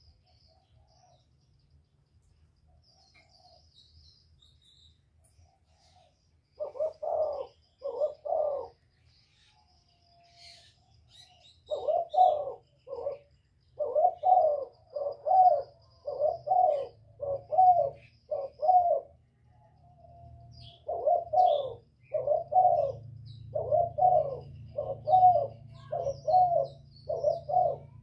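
Spotted dove cooing: two coo notes, then two long runs of evenly repeated coos, a little under one a second. Faint chirps of small birds sound in the background.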